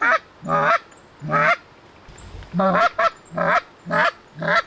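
Goose honking: a series of about eight short, loud honks, irregularly spaced, some coming in quick pairs.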